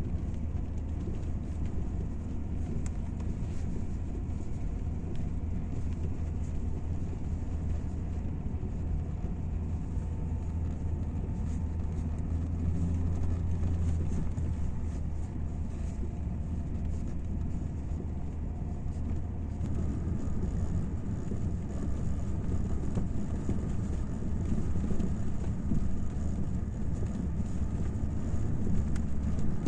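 Audi 80 B4 on the move, with a steady low rumble of road and running noise and many short knocks from the front suspension, the fault the car is being checked for. The rumble grows louder about two-thirds of the way through.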